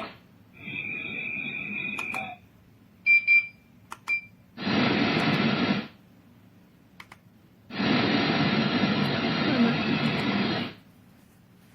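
Bedside alarm clock lamp's small speaker giving short sharp beeps and stretches of hiss-like sound as it is switched between modes. First comes a short hiss with a steady high tone. Then come three quick beeps, and after them two bursts of hiss, about one and three seconds long, each cutting off abruptly.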